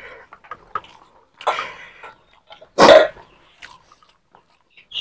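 Someone eating rice with the fingers from a steel plate: soft clicks of the hand mixing the food and of the mouth, with one loud, short burst about three seconds in.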